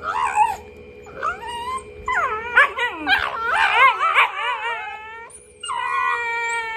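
Two Shiba Inus mouth-sparring face to face, trading rapid high-pitched, wavering whines and howl-like screams.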